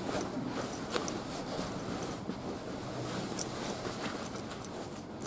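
Nylon sleeping bag rustling and scraping on concrete as someone shifts inside it, with a few faint clicks.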